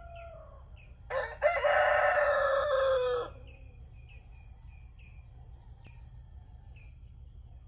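A rooster crows once, loud and long: a drawn-out cock-a-doodle-doo starting about a second in, lasting about two seconds and ending abruptly. In the first half second the end of a fainter crow fades out.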